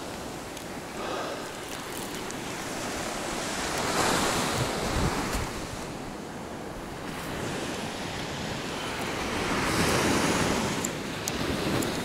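Sea waves breaking and washing up the shore, surging twice, about four seconds in and again around ten seconds, with wind buffeting the microphone.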